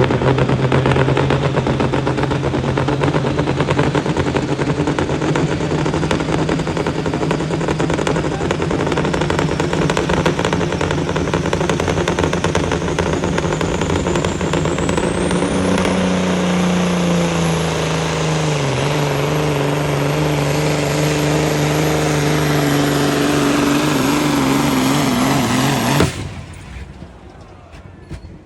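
Turbocharged pulling engine running loud and flat out under load. About halfway through, a high whine climbs and holds while the engine note drops and wavers, which fits the turbo failing catastrophically. The sound cuts off abruptly near the end.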